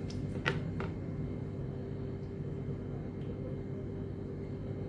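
Grated onion being added to a cooking pot, with two short knocks about half a second in, over a steady low hum.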